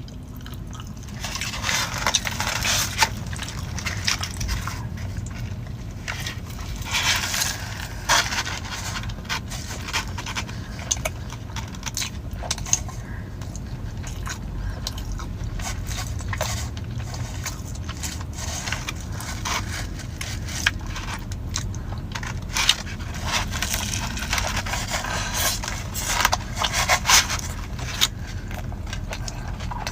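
Close-up eating sounds: biting and chewing a stuffed Jamaican oxtail patty, with irregular crunching and scraping from the crust, over a steady low hum.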